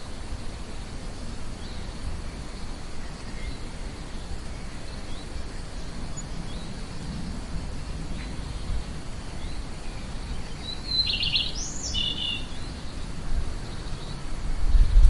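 Songbird singing: one clear burst about eleven seconds in, a fast trill followed by a rising and falling whistle and a few quick notes, with a few faint chirps elsewhere. Underneath runs a steady background hiss with a low rumble and a faint thin high tone.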